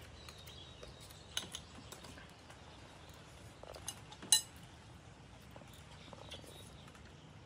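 Scattered quiet clinks and taps of spoons against plates and bowls during a meal, with one sharper, ringing clink about four seconds in.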